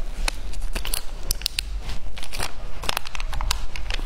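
Plastic packaging of a cat-paw jelly crackling and clicking as it is handled and opened: an irregular run of sharp crackles.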